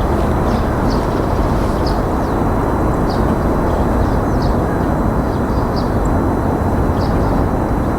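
Steady loud rushing background noise, low and dense, with short high bird chirps repeating over it about once or twice a second.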